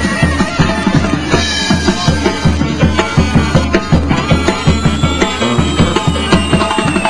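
Castillo fireworks tower burning, with dense rapid crackling and popping and a thin tone that slowly falls in pitch. Music with a drum beat plays underneath.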